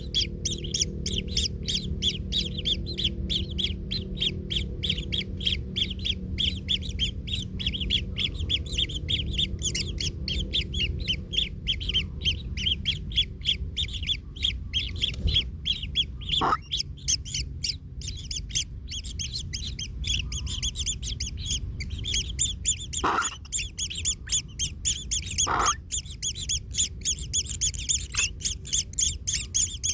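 Kingfisher nestlings calling from the nest in a fast, steady stream of high chirps, about four a second. Three louder, lower calls stand out a little past halfway.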